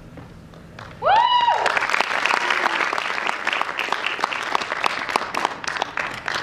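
A small audience breaks into applause about a second in, many separate claps, with a high rising whoop of a cheer at the start.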